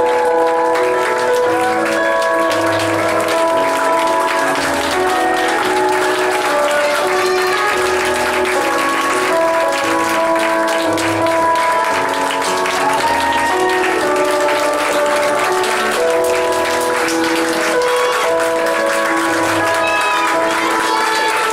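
Curtain-call applause from an audience and cast, clapping steadily under instrumental music with held, slowly changing notes.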